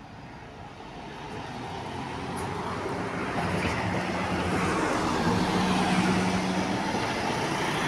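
Mercedes-Benz articulated city bus driving past close by: its engine and tyre noise build steadily and are loudest in the second half.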